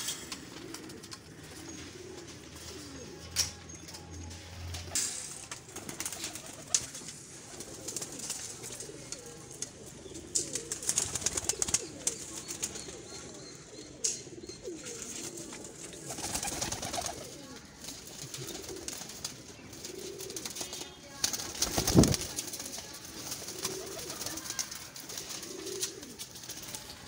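Domestic fancy pigeons cooing over and over, with scattered clicks and a patch of wing flapping near the middle. A single sharp knock about two-thirds of the way through is the loudest sound.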